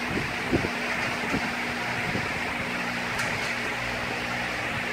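Steady machine hum with a hiss, carrying a few soft low knocks about once or twice a second.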